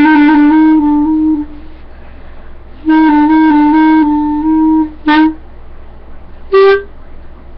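Solo clarinet playing: a phrase that trails off about a second in, a run of several notes after a short pause, and a single short, loud accented note near the end.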